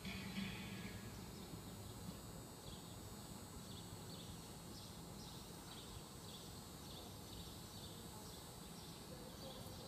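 Quiet covered-arena ambience: faint music fades out in the first second, then short, faint high chirps repeat irregularly over a low steady background.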